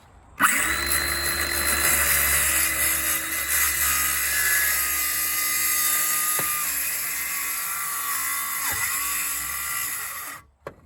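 Circular saw running as it cuts through T1-11 plywood siding. The motor's pitch briefly dips twice as the blade loads in the wood, and the saw stops suddenly near the end.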